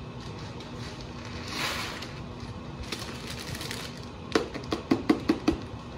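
Paper lid peeled off a small plastic mac and cheese cup, rustling and tearing, then about half a dozen sharp clicks and taps as the plastic cup is handled, over a faint steady hum.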